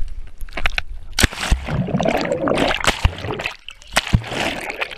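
Water splashing and churning around a camera plunged into a swimming pool, with several sharp knocks along the way.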